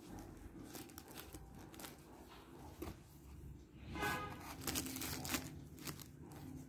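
Clear plastic wrapping crinkling and rustling as hands handle a satin eye mask above it. A short tonal sound comes about four seconds in.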